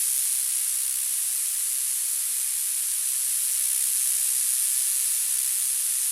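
Tinnitus masking noise: a steady, high-pitched hiss with most of its energy in the treble and nothing in the bass.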